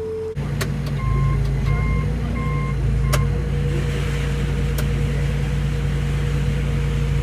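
Tractor engine running steadily under load while the grain cart's auger unloads grain into a semi, with three short electronic beeps about a second in.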